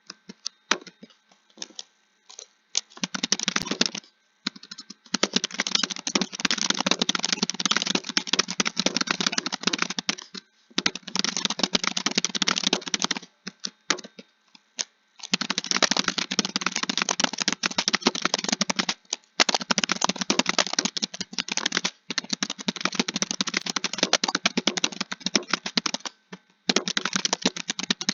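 Computer keyboard being typed on quickly: long runs of rapid keystrokes broken by short pauses.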